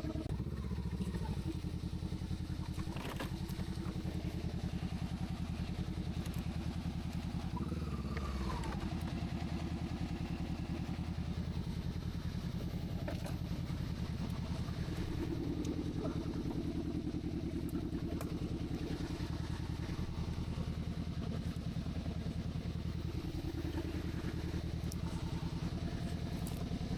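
Honda CBR sportsbike engine running at low, fairly steady revs while riding a rough dirt track, with small rises and falls in engine speed and occasional sharp clicks and knocks.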